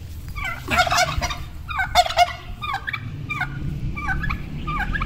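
Domestic turkeys gobbling: two loud rattling gobbles about one and two seconds in, with shorter bird calls between and after them.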